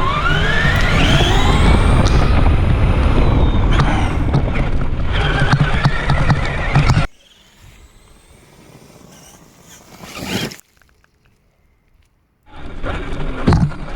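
Traxxas Summit RC truck's brushed electric motor and drivetrain whining, rising steeply in pitch as it speeds up, over the rattle and rumble of the truck running across rough ground. About seven seconds in the sound cuts off suddenly to a quiet stretch with a short stretch of near silence, and the driving noise starts again near the end.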